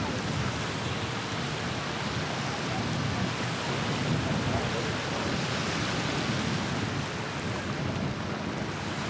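Steady outdoor wash of wind on the microphone and lake water, with faint distant voices in the background.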